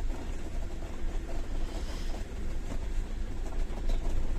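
Motorhome engine and road noise heard from inside the cab while driving: a steady low rumble with a haze of rolling noise.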